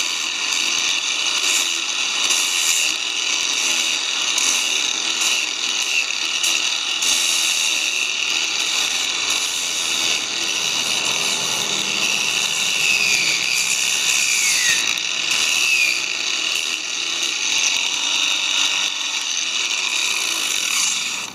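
Rotary power sander with an 80-grit sanding disc on a soft rubber backing pad, running steadily as it is pressed lightly against a wooden handrail joint. The motor gives a high whine over the hiss of the abrasive on wood, dipping in pitch briefly a few times in the middle as it takes load.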